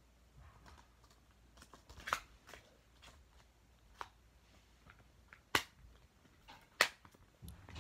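A plastic Blu-ray case being handled: scattered sharp clicks and taps from the case, the loudest about five and a half and seven seconds in, with faint handling noise between.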